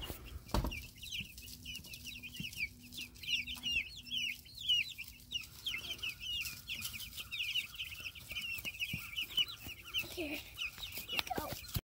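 A flock of two-week-old meat chicks peeping: many short, high chirps overlapping without pause.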